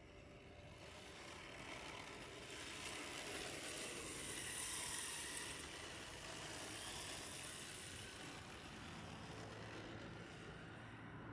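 Small electric RC drift car running on asphalt: a faint motor whine and the hiss of its tyres sliding. It grows louder as the car comes close and is loudest about five seconds in, then drops back as it drives away.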